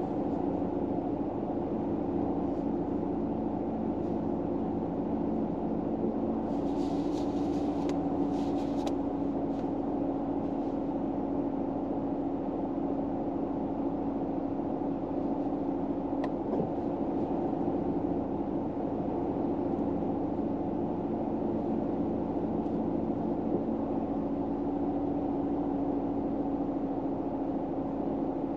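Steady low hum inside a car, the cabin drone of a vehicle running while parked. About seven to nine seconds in, a brief soft rustle.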